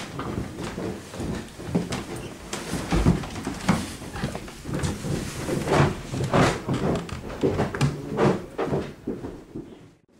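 Irregular knocks, clunks and shuffling footsteps of people moving through a small stone room, with a heavy door being handled among them.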